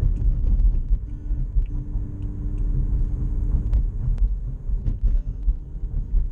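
Car driving, heard from inside the cabin: a continuous low rumble of engine and road noise, with a few light clicks.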